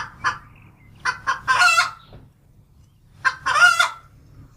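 Hen cackling: two runs of short clucks, each ending in a longer drawn-out squawk, about a second in and again about three seconds in.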